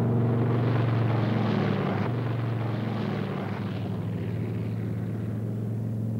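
Lockheed P-38 Lightning's twin Allison V12 engines at take-off power, a steady low drone with a rush of propeller noise that swells in the first couple of seconds, then fades as the fighter runs away down the runway and lifts off.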